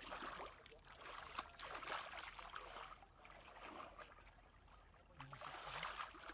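Shallow muddy water splashing and sloshing as a person gropes in the mud by hand and wades through it, in irregular bursts.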